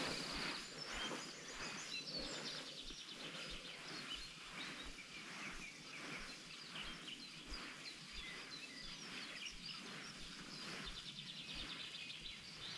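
Faint outdoor ambience with birds chirping, and a faint soft rustle repeating about twice a second.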